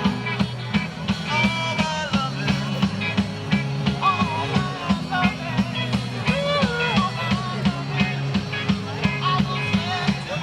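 Rock music with a steady driving beat, a bass line and a gliding melody line over it.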